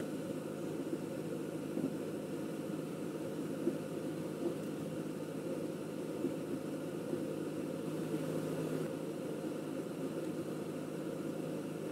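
Steady low machine hum from an appliance running in the room, with a few faint clicks as small plastic model parts are handled.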